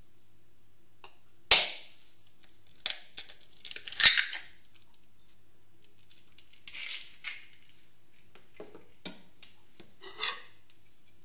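A kitchen knife blade strikes a raw egg's shell sharply about one and a half seconds in, the loudest sound here, followed by a run of cracks and clicks as the shell is broken open over a glass bowl. Near the end come a few lighter taps and clicks as eggshell halves are set down on the table.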